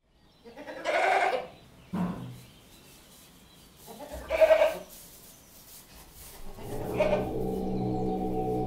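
A goat bleating several times, the calls spaced a couple of seconds apart. Steady, sustained music fades in near the end.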